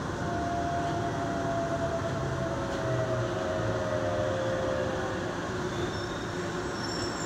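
Keihan electric train pulling away from an underground station, heard from inside the front car: a motor whine that steps down in pitch over the first five seconds, over a steady rumble of wheels on rail in the tunnel.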